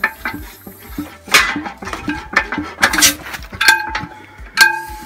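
Antique Imperial Super Diesel hit-and-miss engine turned over by hand without firing, its mechanism clicking and knocking, with two short hisses of aerosol starting fluid sprayed into it. Several ringing metallic clinks come in the second half.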